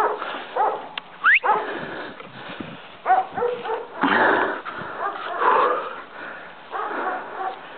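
A dog whimpering and yipping in short, high, arching cries scattered throughout, with one quick rising whistle about a second in.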